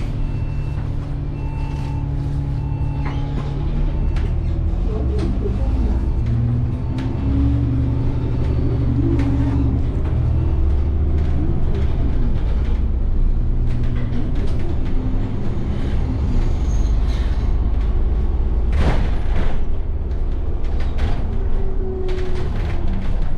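Alexander Dennis Enviro400 double-decker bus heard from on board while under way: the diesel engine and drivetrain run with a low drone, their pitch rising and falling as the bus pulls and changes speed, and the cabin rattles. A short hiss comes about three-quarters of the way through.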